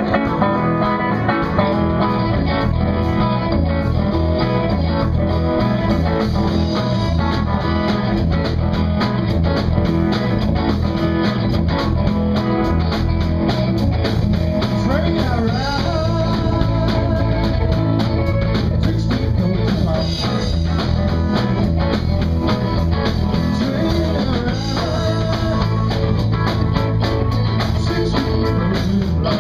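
Live blues-rock band playing: electric guitars, bass guitar and drum kit at a steady beat, with a guitar line gliding up in pitch about halfway through.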